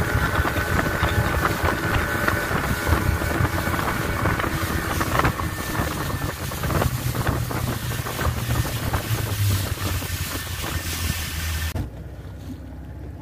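40 hp outboard motor running a boat at speed, with wind buffeting the microphone and water rushing past. About twelve seconds in the wind and hiss drop away abruptly, leaving a quieter low motor hum.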